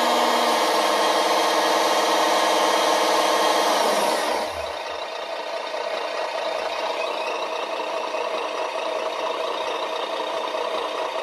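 Simulated truck diesel engine sound from an RC sound module, played through its small speaker and running hard with throttle applied. About four seconds in, it drops back and runs quieter and steadier.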